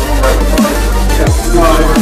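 Electronic dance music with a heavy, steady deep bass and a bass note that slides downward roughly every three-quarters of a second.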